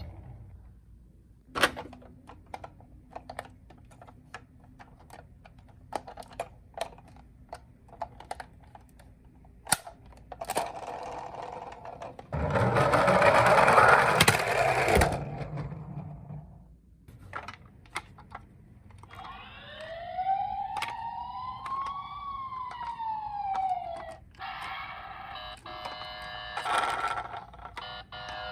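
Small plastic clicks and knocks of toy minicars being handled, then a loud, rattling rush of noise for about four seconds. Later a toy ambulance's electronic siren wails up and back down once, then changes to a choppier siren tone near the end.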